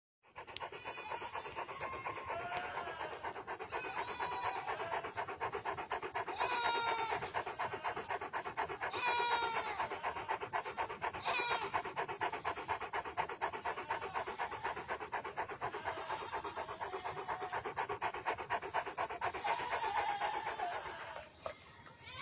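Bhotiya dog with a bloodied muzzle panting quickly and steadily. Short high gliding calls sound over the panting every few seconds.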